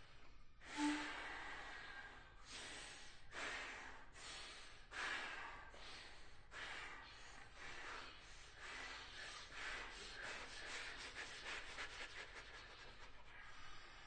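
Woodwind quintet playing soft, breathy, mostly unpitched air sounds that swell in and out one after another, with a brief soft pitched note about a second in. The swells overlap more densely in the second half.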